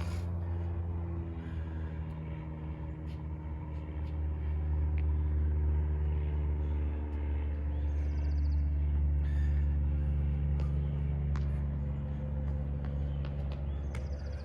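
A motor vehicle engine running with a steady low hum, swelling louder through the middle and easing off toward the end, with faint bird chirps above it.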